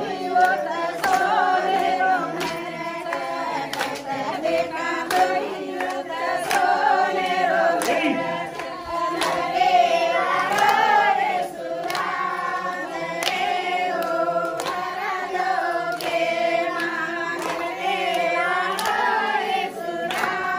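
A group of voices singing a devotional song together, kept in time by regular hand claps.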